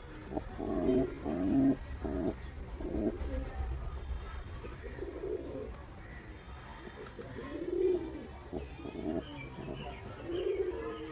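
Male domestic pigeon courtship cooing to a female: a run of low coos in the first three seconds, then single coos about every two to three seconds.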